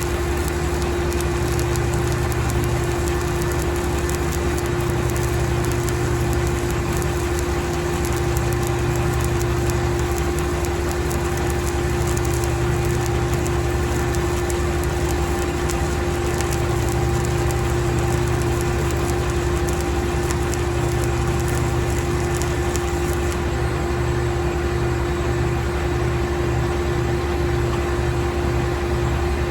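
Stick welding arc crackling steadily as a repair pass is laid into a gouged-out crack in a steel excavator bucket, over a steady hum.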